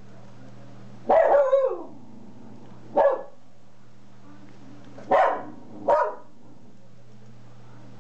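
Small curly-coated dog barking four times: a longer first bark that falls in pitch, a short one, then two quick ones close together. A faint steady low hum runs underneath.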